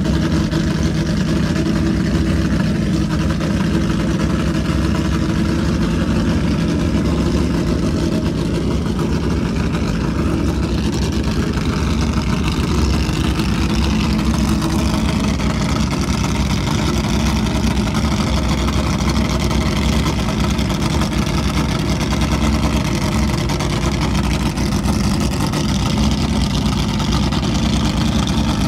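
Ford GT40's V8 engine idling steadily, with a loud, even, low exhaust note.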